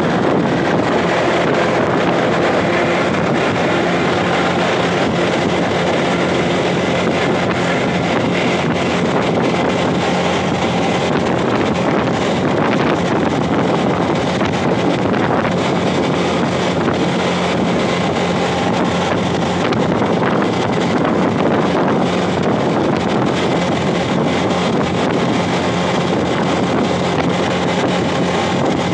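Motorcycle running steadily at cruising speed, with wind rushing over the microphone and the engine's steady hum underneath.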